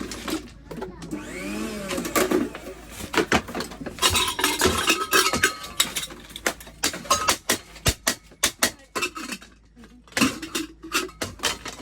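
Irregular series of sharp knocks and taps on a metal utensil under repair, coming thick and fast from about four seconds in, with a brief wavering tone near the start.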